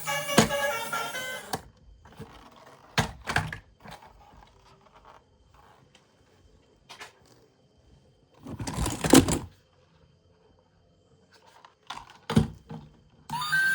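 Handling sounds in a quiet room: a few scattered knocks and clicks of hard objects, and a brief, louder scraping rustle about nine seconds in. Background music cuts off about a second and a half in and returns just before the end.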